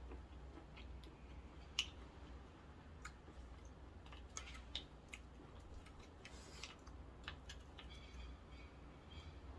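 Scattered small clicks and taps of mussel shells and a wooden spoon being handled over a steel pot of seafood noodle soup, the sharpest about two seconds in, over a faint low hum.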